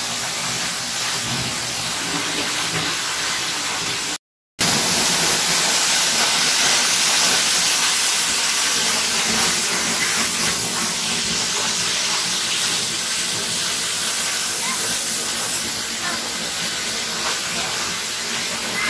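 Giessbach Falls waterfall pouring down close by: a steady, dense rush of falling water and spray, cut by a brief gap of silence about four seconds in.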